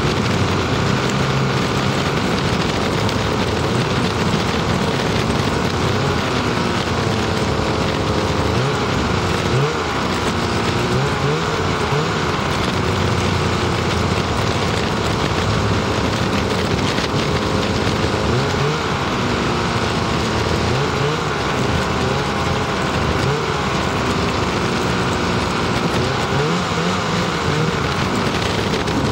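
Ski-Doo snowmobile engine running at speed under a steady rushing noise, its pitch rising and falling several times as the throttle is opened and eased.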